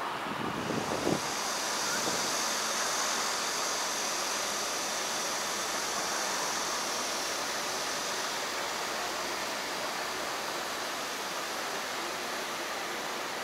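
Steady rushing outdoor city ambience with a high hiss that sets in about half a second in, plus a few low rumbles in the first second.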